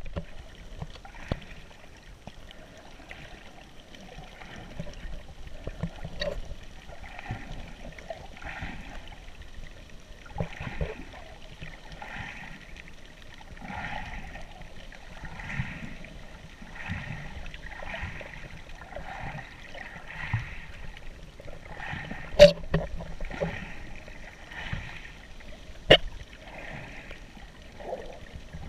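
Water sloshing and gurgling as heard through an underwater camera, with a soft swish recurring about once a second and two sharp clicks in the last third.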